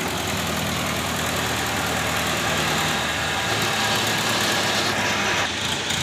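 Mobile crane's diesel engine running steadily while it carries a railway wheelset on its hook.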